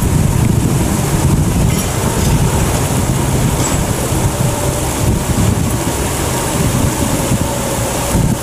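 Wind buffeting the microphone, a rough low rumble, with a faint steady hum underneath.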